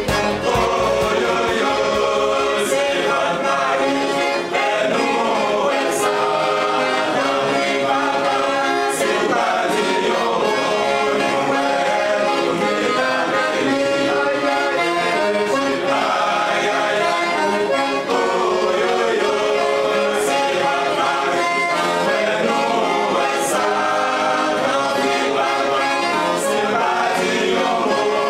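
A men's vocal group singing together in harmony, accompanied by an accordion, in one continuous performance.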